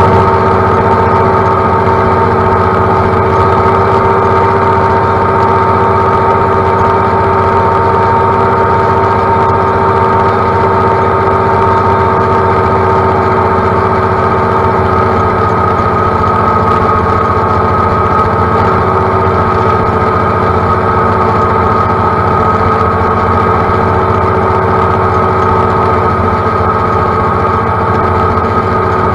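John Deere utility tractor's diesel engine running at a steady speed while mowing, a constant drone with several steady whining tones that do not change.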